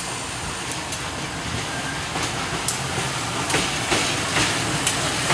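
A train rolling past, its wheels clacking irregularly over the rail joints, the clacks coming more often and louder in the second half.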